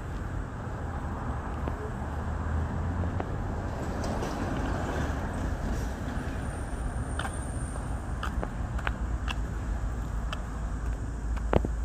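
Outdoor vehicle noise: a car's engine and tyres as an SUV pulls out and drives slowly through a parking lot, over a steady low traffic rumble. A few light clicks come in the second half, with a sharper knock near the end.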